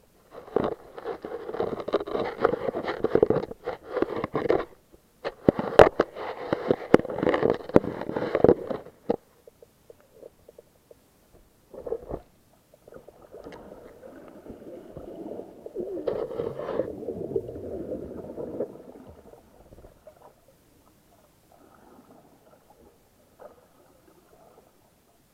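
Muffled underwater rushing and sloshing picked up through a waterproof camera housing as it moves through the water, with scattered clicks and knocks. Two loud stretches of about four seconds each come first, then a quieter stretch later.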